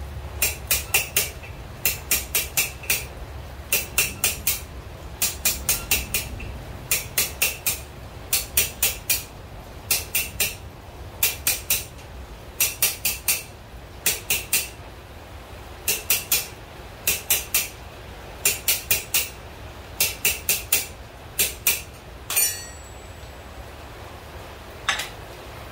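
Blacksmith's hand hammer striking hot steel in a spring fuller on an anvil, in quick runs of three to five blows with short pauses, each blow ringing. Near the end a single clang with a longer ring, then one more blow.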